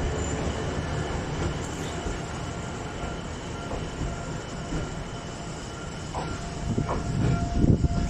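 Keifuku (Randen) electric railcar running along the track past the station platform as it moves away, a steady rumble of wheels and motor with a few heavier low knocks near the end.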